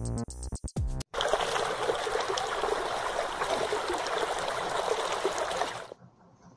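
Electronic music ends about a second in, followed by about five seconds of steady trickling, bubbling water from a sound effect, which stops suddenly near the end.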